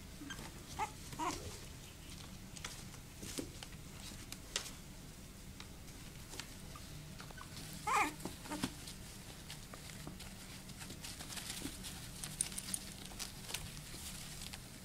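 Young puppies whimpering and yelping as they tussle, with two short cries about a second in and a louder yelp near the middle. Small claws scratch and tap on the plastic tub and puppy pads throughout.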